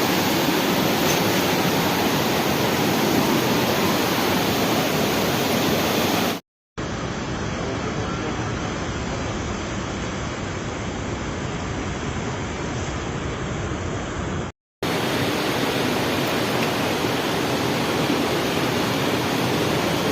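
Steady rush of flowing river water. It cuts out to silence briefly twice, the middle stretch a little duller.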